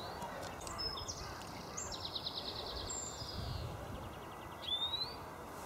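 Small birds chirping over a steady outdoor background hiss, with a quick trill in the middle and a short rising whistle near the end.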